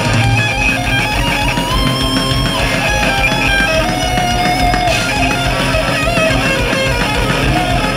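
Thrash metal band playing live: a distorted electric guitar solo of held and sliding notes over the rest of the band.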